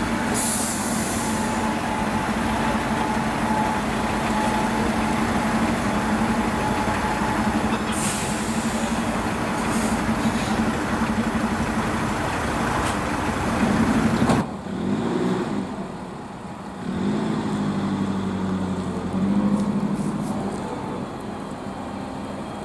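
THW heavy diesel trucks of a convoy driving past, engines running, with short air-brake hisses about a second in and again around eight and ten seconds. About two-thirds of the way through the sound cuts to a quieter diesel, a wheel loader driving past, its engine note shifting up and down.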